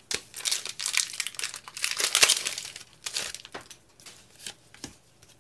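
Foil wrapper of a Pokémon Team Up booster pack crinkling and tearing as the pack is ripped open. The rustle lasts about three seconds and is loudest just past the middle, then gives way to a few soft clicks of cards being handled.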